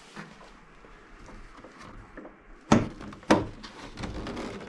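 Rustling, then two sharp clunks about half a second apart a little past halfway: the heavy bonnet of a Škoda Felicia being unlatched at its front safety catch and lifted open.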